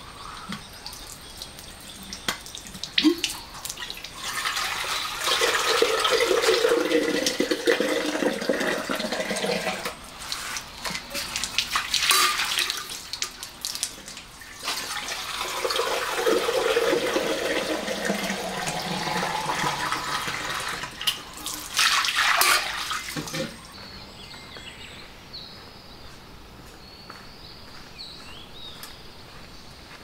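Water running from an outdoor tap into a stainless steel kettle in two spells of several seconds, each with a tone that slides downward as the water runs. The water stops about two-thirds of the way through.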